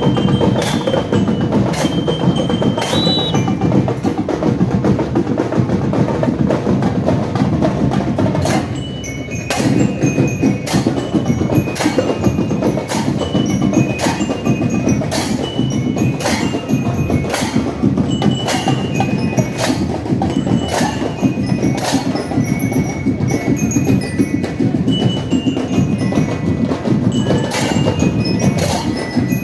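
Marching band playing loud and steadily: drums keep an even beat of sharp strikes, about one and a half a second, with short high bell-like notes over the band. The band dips briefly about nine seconds in.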